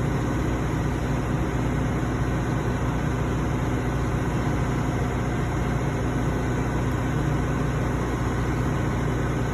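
Steady, unchanging low mechanical drone of running machinery, with a deep hum under a broad hiss.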